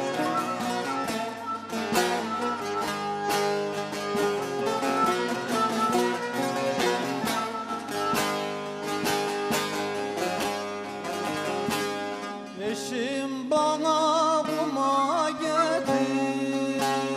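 Turkish folk music: a bağlama (saz) plucked in quick, busy strokes together with a bowed kabak kemane. About thirteen seconds in the plucking thins out and a wavering melody line with strong vibrato comes forward.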